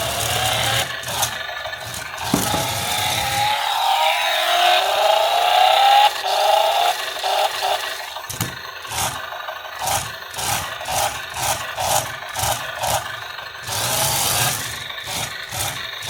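Scraping and rattling of objects being handled. A squeal rises in pitch a few seconds in, and in the second half comes a run of regular rubbing strokes, about two a second.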